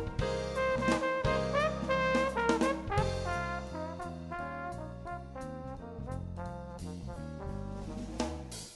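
Background music: jazzy brass, trumpet and trombone over a steady bass line.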